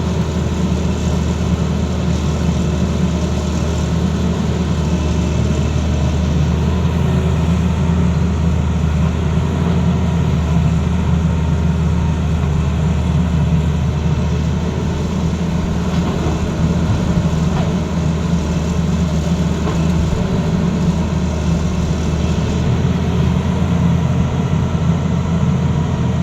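Tata Hitachi excavator's diesel engine running steadily at a constant speed, a loud, even low drone with no revving or impacts.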